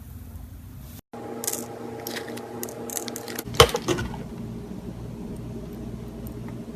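Cloud slime being squished and handled, with a run of soft crackles and pops and one sharp snap about three and a half seconds in, over a steady hum.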